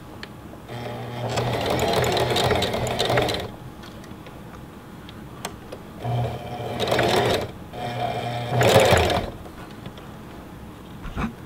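Singer Heavy Duty sewing machine sewing a blind hem stitch in three short runs: one of about three seconds, then after a pause two of about a second and a half close together, each with a steady motor hum under the needle's clatter.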